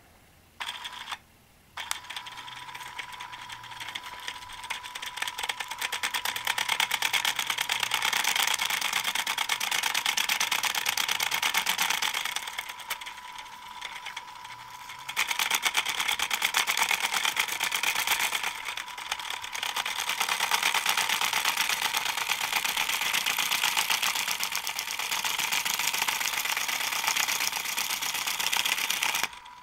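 Lego Mindstorms motor driving a plastic gear train and a shredder rotor of Lego pieces on a 1x8 axle, running and chewing up styrofoam: a steady whine with a fast rattle. It starts about two seconds in after a click, drops back for a few seconds in the middle, and stops suddenly just before the end.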